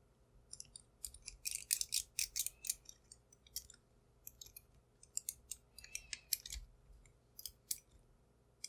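Irregular small metal clicks and scrapes, in quick clusters, as a Top Security 65 mm padlock is worked apart by hand and with tools.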